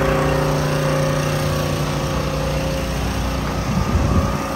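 An engine running at a steady pitch, fading out about three seconds in and leaving a rough street rumble.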